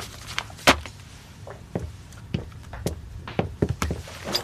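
Footsteps of a person walking away across a room: a series of separate short knocks at an uneven walking pace.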